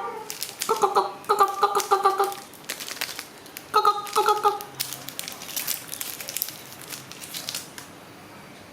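Thin plastic wrapper crinkling and tearing as a surprise egg's contents are unwrapped. In the first half, quick runs of short high-pitched vocal notes sound over it.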